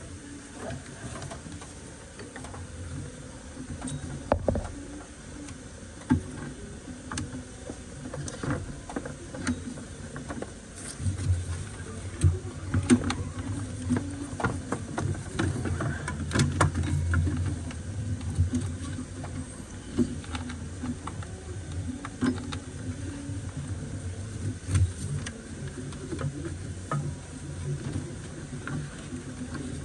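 Hand work on a new rubber serpentine belt being fed over the engine pulleys, with the engine off: rustling and scraping of gloves and belt against pulleys and engine parts, and irregular clicks and knocks. A low hum runs under the middle part.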